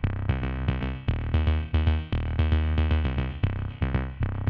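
Electronic background music: synthesizer notes over a steady drum-machine beat with deep bass.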